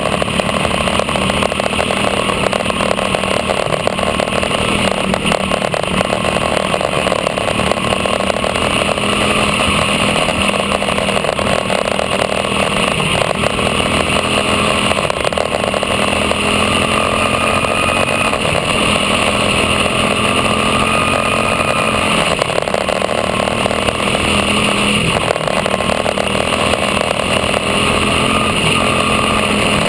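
Quarter midget race car's single-cylinder engine running at racing speed, picked up close by a microphone on the car. The engine note is steady, with small rises and falls in pitch through the laps.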